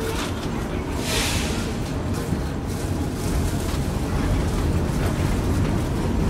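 R-46 subway car running through a station, its wheels and traction motors making a steady rumble that grows gradually louder as the train gathers speed. A short hiss comes about a second in.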